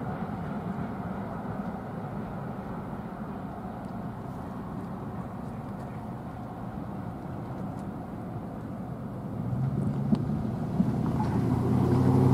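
Diesel locomotive approaching: a steady low rumble, with the engine's pitched drone coming in about three-quarters of the way through and growing steadily louder.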